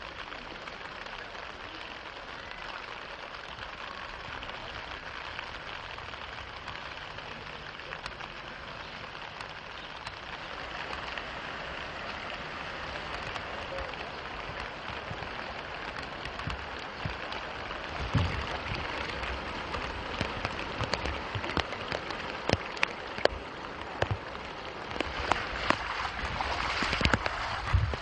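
Steady rain falling, a continuous even hiss, with scattered sharp drop ticks that come more often in the second half.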